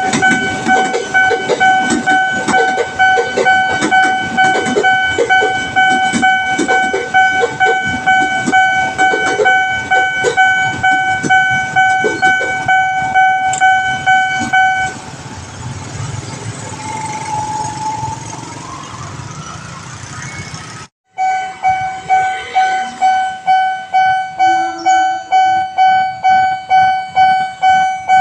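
Railway level-crossing warning alarm: an electronic bell tone pulsing about twice a second, over the rumble and clatter of a passing train. About halfway through the alarm stops and road-traffic noise with a rising engine note takes over. After a brief dropout the alarm starts pulsing again.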